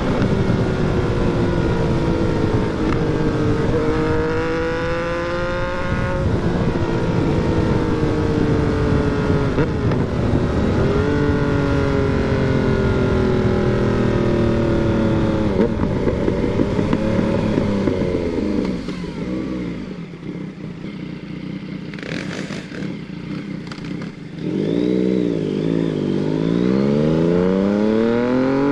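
Yamaha MT-09's three-cylinder engine under way, its pitch climbing and falling with throttle and gear changes. About two-thirds through it eases off to a lower, quieter run, then revs climb sharply again near the end.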